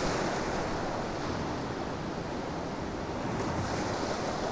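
Storm-driven waves breaking and washing over shoreline boulders, a steady rushing surf.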